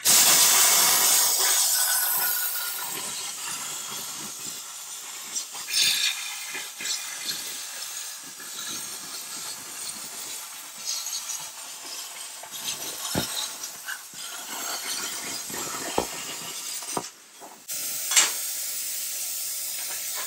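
Hobart AirForce 40i plasma cutter cutting 3/16 steel plate: a loud, steady hiss of air and arc that starts suddenly, with scattered sharp pops. Near the end it cuts out for a moment and restarts with a sharp crack.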